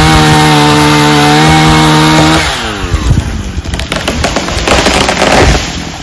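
Chainsaw running at full throttle as it cuts through a tree trunk, its revs falling away to idle about two and a half seconds in. Then comes the swish and crash of the felled tree's branches hitting the ground, loudest near the end.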